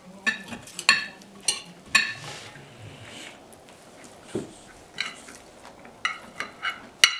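Knife and fork clinking against a china dinner plate as food is cut, a quick run of ringing clinks, a lull in the middle, then another run of clinks near the end.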